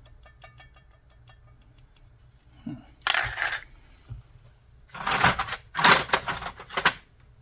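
Small metal parts clicking and rattling, then four short hissing sprays of aerosol carburetor cleaner, one and then three in quick succession, blasting out the carburetor's orifices.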